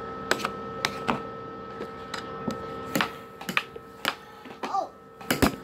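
Air hockey puck and mallets clacking: a string of sharp knocks as the puck is struck and bounces off the rails, the loudest near the end. Under them runs the steady hum of the table's air blower.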